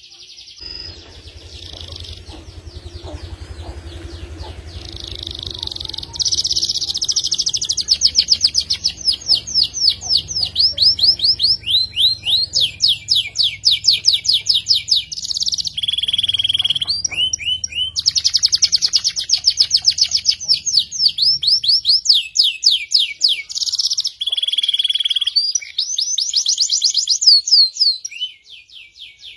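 Domestic canary singing a long, sharp song of rapid rolling trills, each run made of many quick repeated notes, broken by a few brief pauses and changes of phrase.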